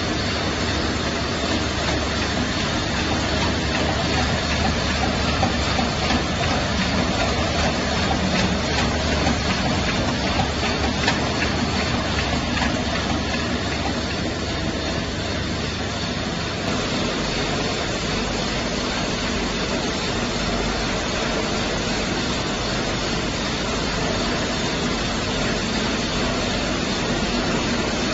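NFC juice filling line running: steady dense machinery noise from the filler and the bottle conveyor, with faint light ticking in the middle.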